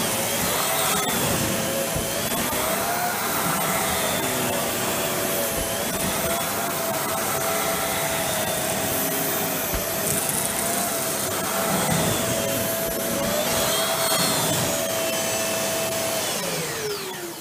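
Dyson Cinetic Big Ball Animal cylinder vacuum cleaner running at full suction while its floor head is worked back and forth over carpet: a steady high motor whine over a rush of air, its pitch wavering slightly as the head moves. Near the end it is switched off and the whine falls away.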